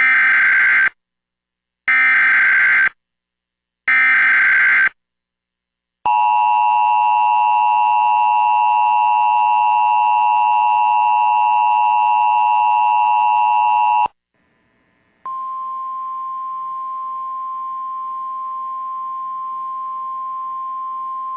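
Emergency Alert System activation for a tornado warning. Three one-second bursts of SAME digital header data sound about two seconds apart, followed by the two-tone attention signal, which holds for about eight seconds and cuts off abruptly. After a second's break, a quieter single-pitch NOAA Weather Radio warning alarm tone sounds steadily.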